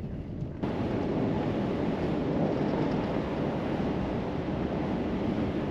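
A pickup truck driving on a snowy road: a low rumble of engine and road noise, which less than a second in gives way to a much louder, even rush of wind on the microphone mixed with tyre noise.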